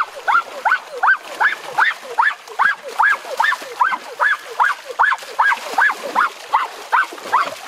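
An animal's repeated yelping call, about three short notes a second, each rising then falling in pitch.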